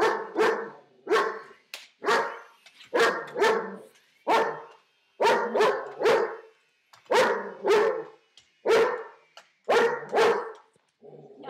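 German Shepherd dog barking repeatedly, the barks loud and often coming in quick pairs, about one to two a second.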